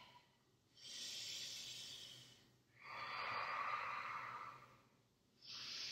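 A woman breathing audibly and slowly while holding a yoga balance pose: three long breaths of about two seconds each, with short pauses between them.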